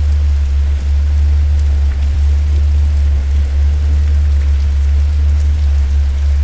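Steady rain falling, with scattered drops ticking over an even hiss. A strong, steady deep rumble runs underneath and is the loudest part.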